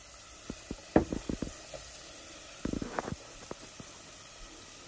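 Marinated meat browning in hot oil in a stainless steel pot: a steady sizzle with scattered sharp crackles, bunched about one second in and again about three seconds in.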